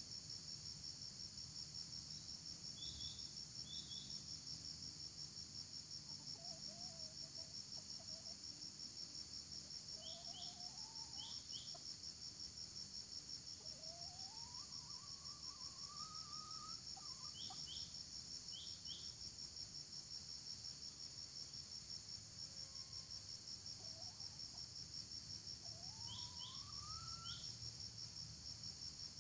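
Steady high-pitched insect drone with a fast pulse. Short high chirps come in twos and threes four times, and faint rising tones sound a few times underneath.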